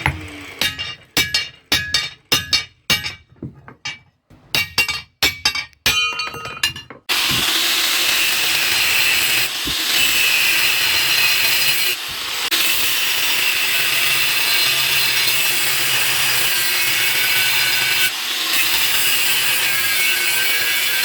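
Hammer blows on leaf-spring steel, each ringing, about three a second, in two runs with a short pause between them. About seven seconds in a power grinder starts and runs steadily to the end, its sound dipping briefly a few times.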